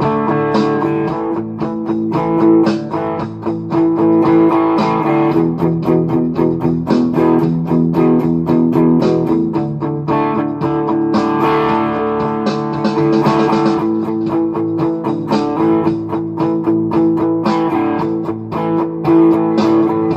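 Guitar playing an instrumental tune, a steady run of plucked notes without singing.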